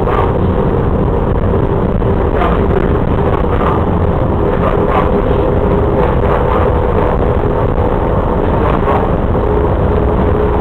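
Seattle Center Monorail's original 1962 Alweg electric train running along its beam, heard from inside the car: a loud steady rumble with a steady hum and a few scattered knocks.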